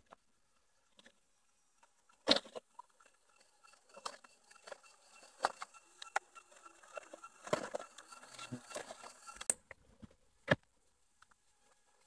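Leaves rustling and leafy stems snapping as wild greens are picked by hand in thick undergrowth: irregular crackles and sharp snaps, with a loud snap about two seconds in, a busier stretch of rustling around the eighth second and another sharp snap near ten seconds.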